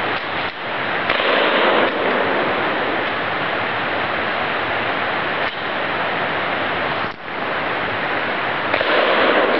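A few shots from a Remington 870 pump-action shotgun, sudden reports spaced seconds apart, over a steady rushing hiss.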